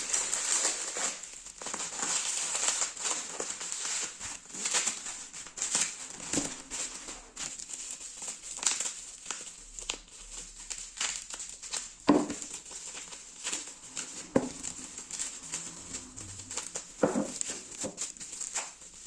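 Plastic bubble wrap crinkling in the hands as its bubbles are squeezed and popped between the fingers: irregular sharp pops, a few of them louder in the second half.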